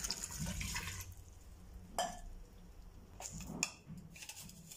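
Water being poured into a pressure cooker of onions, tomatoes and frozen minced meat, the splashing fading out within the first second. It is followed by faint drips and a couple of short clicks.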